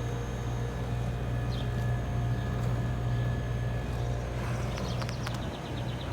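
York Affinity 3S central air conditioner's outdoor condenser running in cool mode: a steady low hum from the compressor and fan with a few steady tones above it. There is a light rattle, with a quick run of high ticks about four and a half seconds in.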